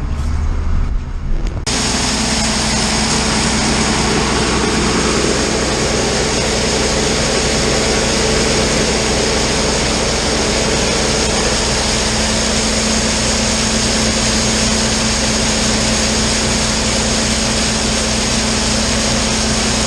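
Large diesel farm machine engine running steadily, a constant hum with a wide hiss over it. About two seconds in, the sound changes abruptly to a denser, steady noise.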